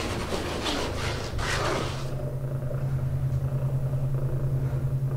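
A rushing, hissing noise for about two seconds, then a low steady hum that pulses evenly.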